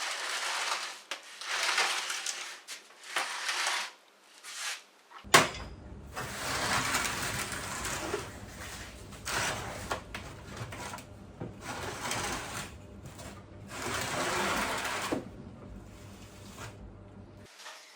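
Partly dismantled motorcycle engine being handled and turned around on a workbench: irregular knocks, scrapes and rattles of metal parts, with one sharp knock about five seconds in.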